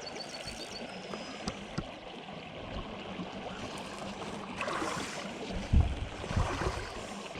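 Small stream running low, a steady rush of flowing water, with a few low rumbling thumps a little over halfway through.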